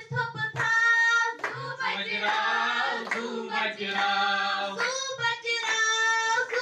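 A group of girls singing together and clapping their hands along with the song.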